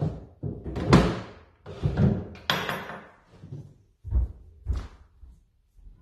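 A series of irregular knocks and thumps, about seven in all, the loudest about a second in.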